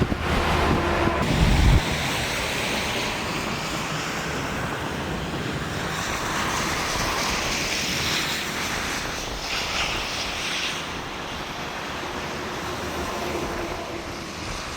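Wind buffeting the microphone with a loud low rumble for the first couple of seconds, then a steady rushing noise.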